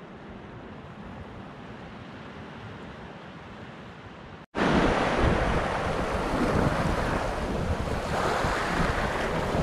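Outdoor noise of wind and sea: a low steady hiss at first. After a sudden cut about halfway through comes loud surf washing and foaming below the cliffs, with wind buffeting the microphone.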